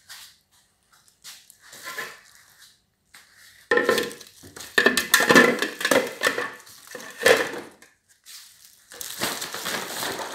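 Clattering and crinkling handling noises at a kitchen sink during vegetable washing, in irregular bursts that begin about a third of the way in, with a short pause before another run near the end.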